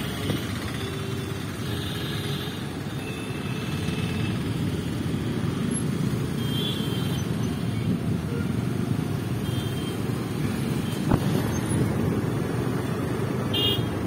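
Road traffic noise heard while travelling along a road: a steady rumble of engines and tyres, with a sharp click about eleven seconds in.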